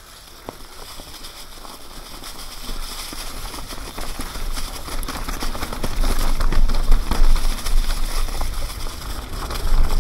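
Mountain bike tyres rolling fast over dry leaves and dirt, a dense crackling and rattling, with wind rumble on the microphone. It grows louder over the first six seconds.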